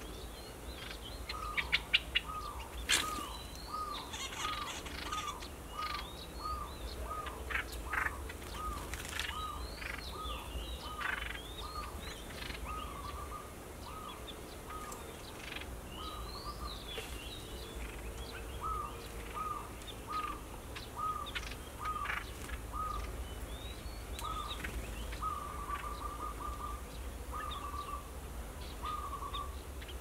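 Zebra dove cooing: a long run of short, evenly spaced notes about two a second, some rolled into short trills. Sharper, higher bird chirps sound over it, with a few loud clicks about two seconds in.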